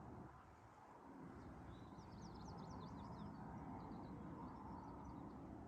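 Faint songbird chirping: a quick run of short high notes about two seconds in, then a few scattered chirps, over a soft low outdoor background hum.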